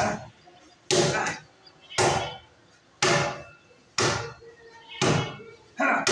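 Open-hand slaps on a steel canopy post, about once a second, six times, each a sharp smack with a short metallic ring.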